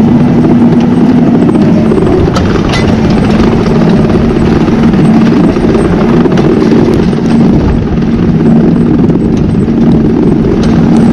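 Tractor's diesel engine running steadily under load while pulling a plough, with a few sharp clicks.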